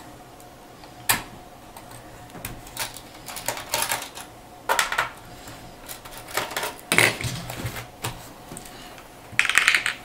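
Sharp, separate clicks and light scraping from a small screwdriver and fingers working on the plastic underside of a Dell Inspiron 15R laptop, prying out its rubber feet and taking out the screws beneath. Near the end comes a short rattle as small screws drop onto the table.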